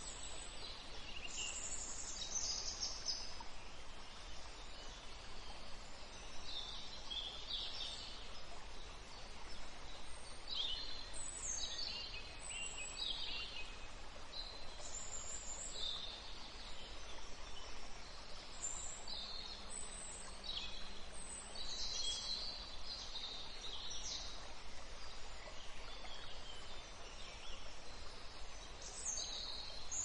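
Outdoor nature ambience: several songbirds chirping and trilling in short high phrases all through, over a steady background hiss.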